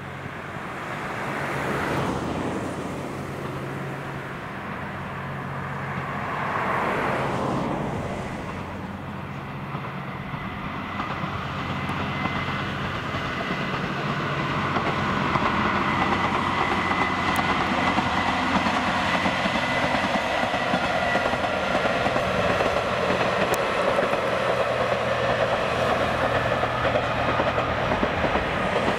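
Two-car JR West KiHa 120 diesel railcar train running along the line, a steady diesel engine drone with wheel-on-rail noise, growing louder as the train approaches.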